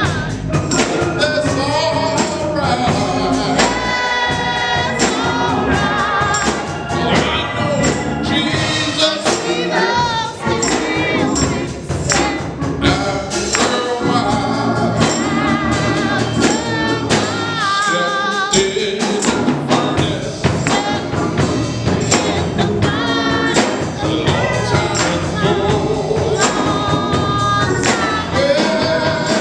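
Gospel music: voices singing with vibrato over percussion keeping a steady beat.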